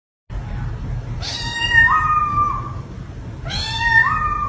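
Domestic cat meowing twice: two long, drawn-out meows that rise in pitch and then hold. The second is cut off abruptly near the end. A steady low rumble runs underneath.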